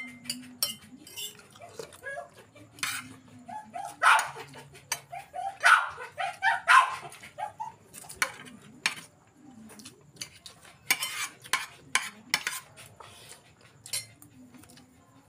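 Metal spoons clinking and scraping against ceramic and glass bowls during a meal, with a dog barking a few times, loudest around four and six seconds in.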